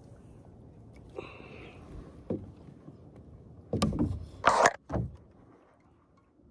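Knocks and bumps on a kayak as a just-landed bass is brought aboard, with a cluster of heavy thumps about four seconds in and a short loud rustle right against the microphone just after, then one more thump.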